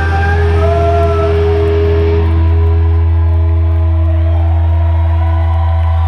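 Live rock band playing loudly: electric guitar and bass hold long sustained notes over a steady deep low note.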